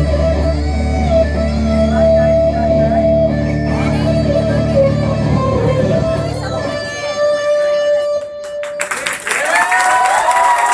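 Electric guitar playing an instrumental piece over a sustained low bass. Near the end the bass drops out and a last held note rings and fades. About nine seconds in, applause and voices from the audience break out.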